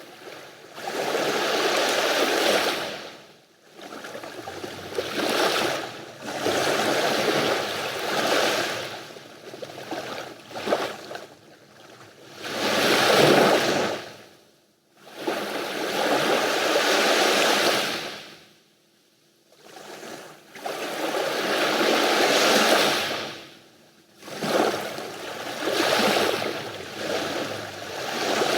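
Sea waves breaking on the shore one after another, each wash of surf swelling and fading away over two to four seconds, about eight in all.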